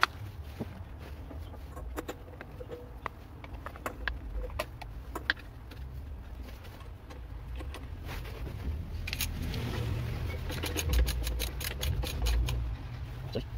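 Small metal clicks and knocks of the Lifan 9 hp engine's flywheel being fitted onto the crankshaft over the stator coil and its nut put on, with a fast run of clicks in the last few seconds.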